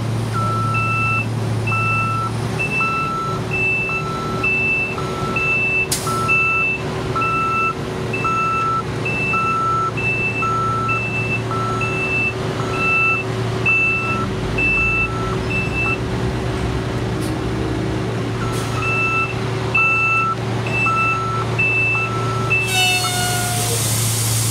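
A diesel truck engine running under a reversing alarm that beeps steadily, about three beeps every two seconds, with a pause of a couple of seconds midway. Near the end comes a loud hiss with a short falling tone.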